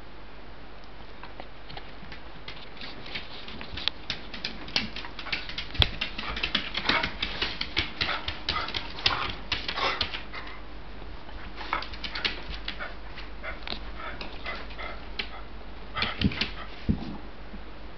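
Cairn terrier tussling in play, its claws clicking and scrabbling on a wooden floor in quick runs of clicks, along with small dog noises. The clicking starts about four seconds in, and there is another flurry near the end.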